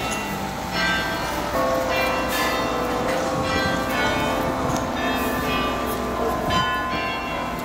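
The Belfry of Bruges carillon playing a melody. Its bell notes are struck one after another, and each one rings on under the next.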